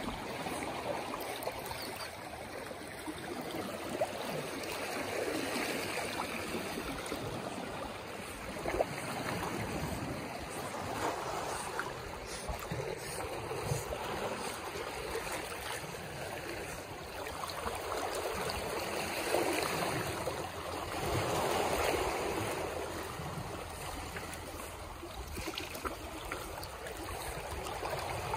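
Shallow seawater sloshing and lapping around a swimming dog, swelling and fading every few seconds, with small splashes from its paddling.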